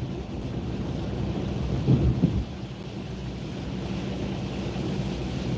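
Steady road and tyre noise inside a car's cabin while driving on a wet road in rain, a low rumble with spray noise. A couple of brief knocks come about two seconds in.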